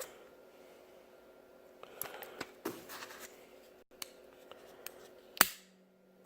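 Handling of a product box: light scraping and clicking, then one sharp loud click about five seconds in.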